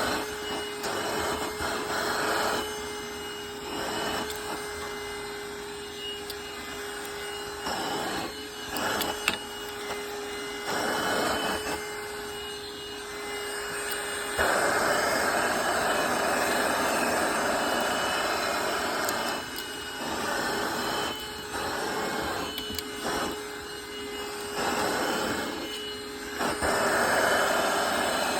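Vacuum cleaner running, its rushing noise swelling and fading every few seconds as the suction changes. A steady hum runs under it for the first half; about halfway the hum stops and the rushing gets louder, louder again near the end.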